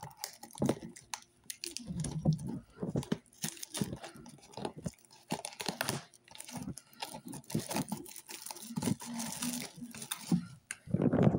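Clear plastic shrink wrap being picked open, torn and peeled off a cardboard booster bundle box by hand, crinkling and crackling unevenly throughout.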